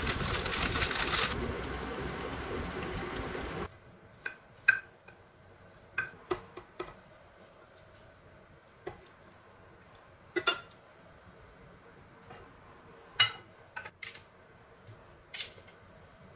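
Ceramic bowls and plates clinking and knocking as a metal ladle and tongs serve food onto them: a string of separate sharp clinks, a few of them loud. For the first few seconds a steady rushing noise runs, which cuts off abruptly.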